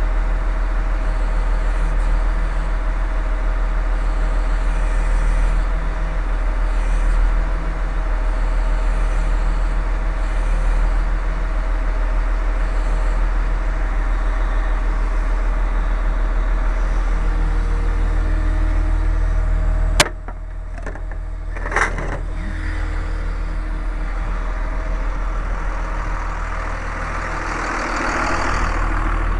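A large engine idling steadily. About two-thirds through there is a sharp click, after which it sounds quieter, and a brief knock follows a couple of seconds later.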